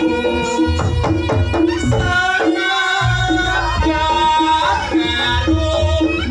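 Reog Ponorogo gamelan playing: a held, bending reed melody over a repeating struck-metal pattern and heavy kendang drumming. The low drums drop out briefly about two and a half seconds in, then come back.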